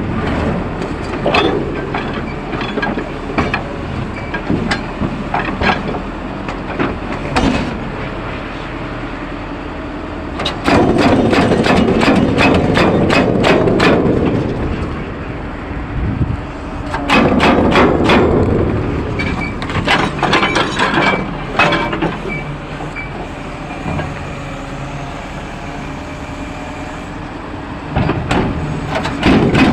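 Jackhammer breaking concrete in repeated bursts, with three louder runs of dense hammering a few seconds each and lighter strikes between.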